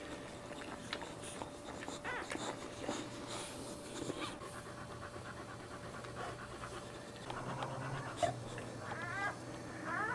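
Boxer mother panting after giving birth, with short wet licking clicks as she cleans her newborn puppy. Near the end a newborn puppy gives a few short, high squeaks.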